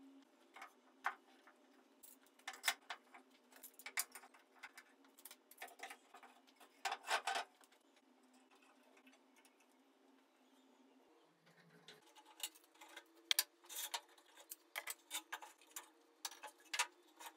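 Quiet, scattered clicks and taps of bar clamps and wooden chair parts being handled and tightened while clamping a glued chair seat, coming in clusters and denser over the last few seconds.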